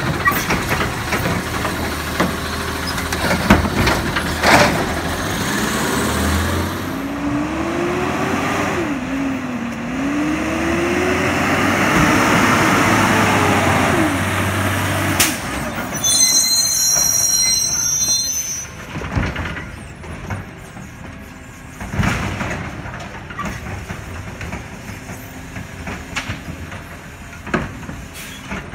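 Labrie Automizer side-loader on a 2018 Peterbilt 520 garbage truck dumping a cart, with several bangs and the engine revving up and down as it works the arm's hydraulics. About two-thirds of the way in a high squeal sounds for about two seconds, then the truck pulls away more quietly with a few thumps.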